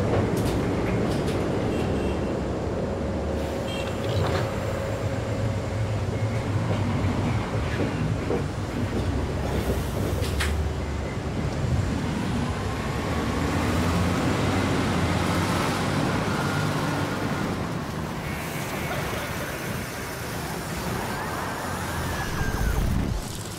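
Steady low rumble of a moving vehicle, with a faint whine slowly rising in pitch through the middle and a sharp click about ten seconds in.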